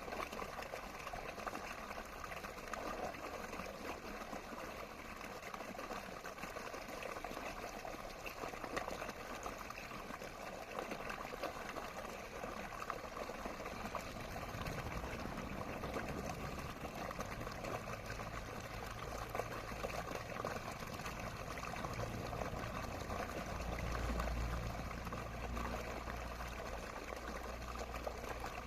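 Running water flowing and trickling steadily, a stream of small open water. A low rumble comes in about halfway and swells near the end.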